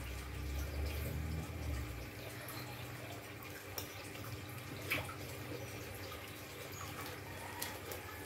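Faint eating sounds: chewing, and a metal spoon and fork clicking a few times against ceramic plates while food is served.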